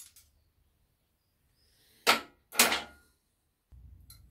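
Two short metallic clacks about half a second apart, from pliers being worked on a motorcycle throttle cable.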